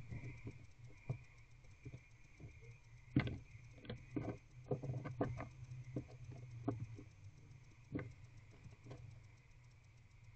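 Barn owl in a wooden nest box handling and tearing at a mouse: irregular taps, knocks and scrapes as it moves on the floor litter, the loudest about three seconds in, over a steady low hum.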